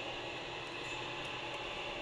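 Steady background hiss with a faint high whine and no distinct knocks or clicks.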